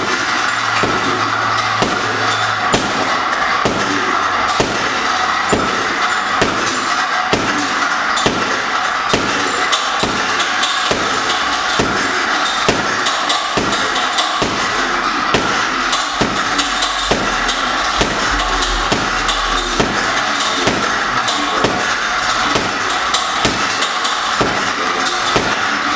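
Boxing gloves striking a heavy bag in a continuous string of punches, about two hits a second, over a steady hiss.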